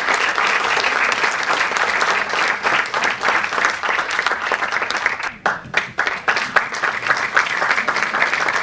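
Audience applauding steadily, with a brief lull about five seconds in.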